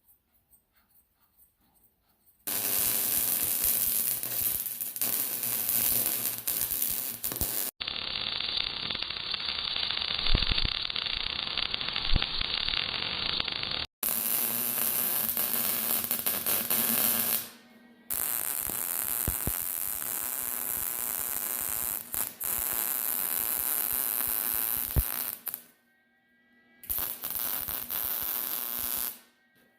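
MIG welder arc crackling and buzzing in several long bursts while threaded rod is welded on to lengthen the gate hinge rods. The bursts stop and start abruptly.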